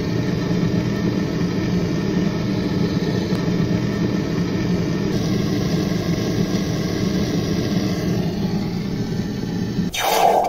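Gas blowtorch flame running with a steady hiss while it heats a brass band red hot. A brief louder burst comes near the end.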